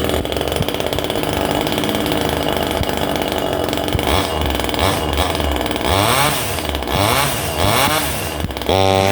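25cc two-stroke gasoline chainsaw engine on an RC truck running steadily, then revved up and down several times from about four seconds in. A different pitched sound cuts in near the end.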